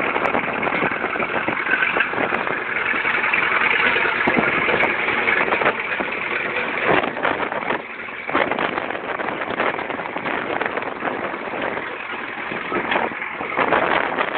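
Caterpillar D2 crawler tractor's four-cylinder diesel engine running steadily as the crawler drives along, with short clanks from its moving steel tracks.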